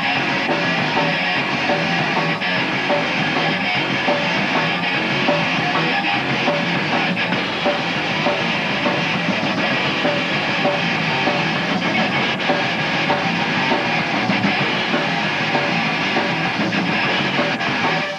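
Rock band playing live, a steady loud passage of electric guitar, bass guitar and drum kit.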